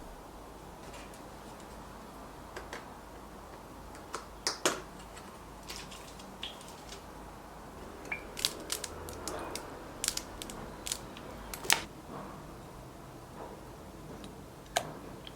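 Kitchen handling sounds: scattered light clicks and taps of utensils and dishes over a quiet room, clustered in the middle with one more sharp tap near the end.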